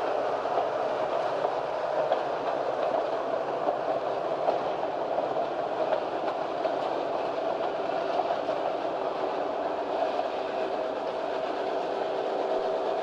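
Passenger train cars rolling steadily along the track: a continuous rumble and rattle with faint wheel clicks.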